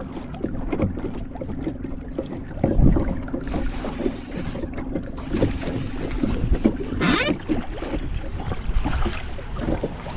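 Knocks and handling noise aboard a small fishing boat over a steady low hum that fades out about six seconds in, with a brief hiss about seven seconds in.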